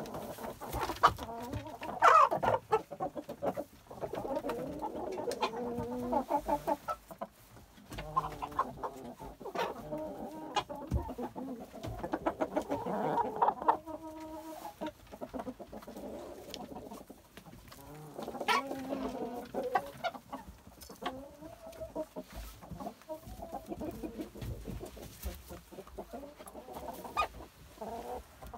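A flock of Brahma chickens clucking and calling, many short calls overlapping, busiest in the first half.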